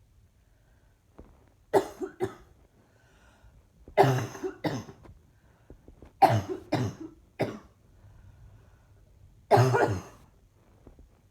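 A woman coughing in four bouts a few seconds apart. The first three are two or three quick coughs each; the last is a single longer cough.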